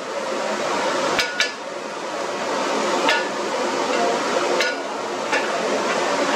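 A long-handled perforated metal ladle clinks sharply against the rim of a large aluminium pot about five times as it scoops through rice boiling in water, over the steady rushing noise of the boiling pot.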